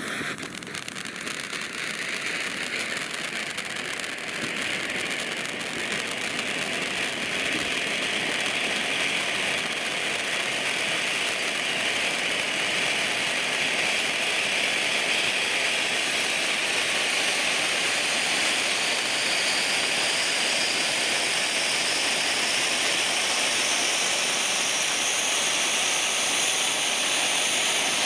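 Jorge 'Crackling Vulkan' ground fountain firework spraying sparks with a loud, steady hiss shot through with fine crackle. It builds up over the first five or six seconds and then holds steady.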